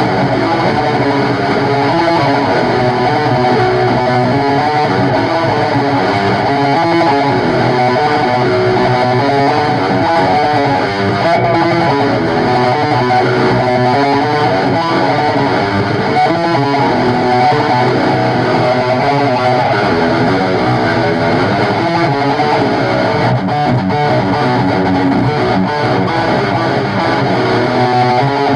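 Distorted electric guitar playing a steady riff with bass guitar underneath, a band playing an instrumental passage of a song.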